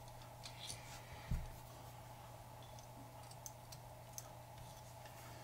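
Faint small clicks and ticks of thin wires and metal tweezers being handled at a model locomotive's circuit board, with one soft low thump about a second in, over a faint steady hum.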